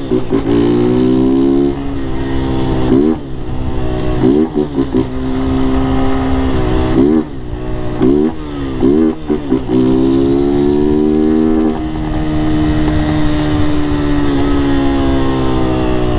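Honda CG 160 Start single-cylinder engine running without its air filter, ridden hard. The pitch climbs and drops sharply at each gear change, over and over. Near the end it holds a steadier pitch that slowly falls away.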